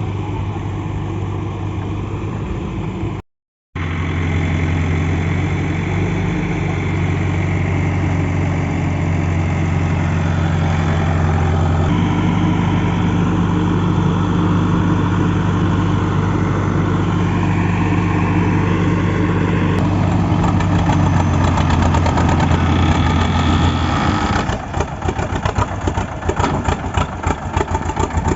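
Diesel engine of heavy farm or earthmoving machinery running steadily, its pitch stepping up slightly partway through. The sound breaks off completely for a moment a few seconds in. Near the end it turns to a rapid, uneven chugging.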